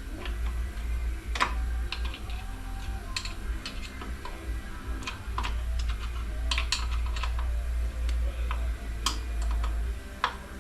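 Irregular light metallic clicks and taps of Ford AOD transmission internals and hand tools being handled during disassembly, over a steady low hum.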